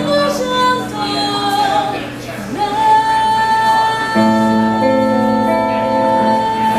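A woman singing a slow jazz ballad with instrumental accompaniment. Her line moves through a few gliding phrases, then she holds one long note, and about four seconds in a sustained chord comes in beneath it as the song closes.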